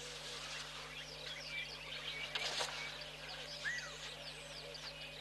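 Many small birds chirping in the bush, a dense scatter of short, falling chirps. There are two sharp clicks about halfway, over a steady low hum.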